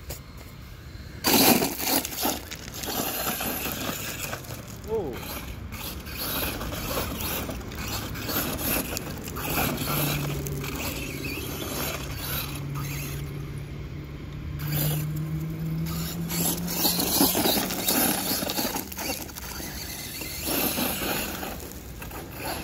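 Brushless-powered Redcat Volcano EPX RC truck driving hard over gravel and dirt: tyres scrabbling and stones scattering in bursts, with a sudden loud hit about a second in. Through the middle a low steady hum rises slightly in pitch for several seconds.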